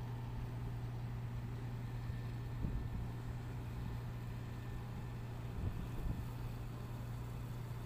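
Steady low drone of an assist boat's diesel engine running, heard on board, with a couple of brief thumps about three seconds in and again around six seconds.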